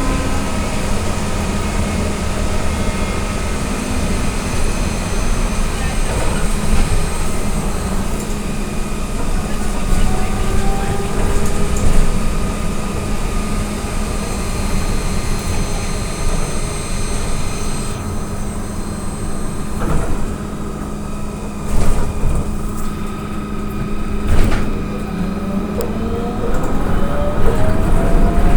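AKSM-321 trolleybus heard from inside the cabin while under way: a steady hum from the electric traction drive over tyre and road noise. A few knocks come about two-thirds of the way through, and near the end a rising electric whine comes in as the trolleybus speeds up.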